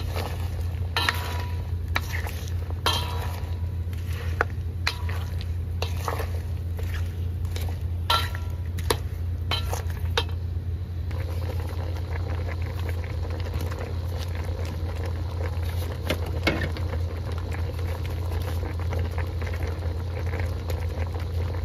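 Wooden spatula stirring apple slices simmering in a pot, with scrapes and knocks against the pot for about the first half, then quieter cooking sounds. A steady low hum runs underneath.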